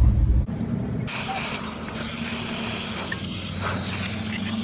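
Steady, strong hiss of a pressurized spray starting about a second in, over a low steady hum.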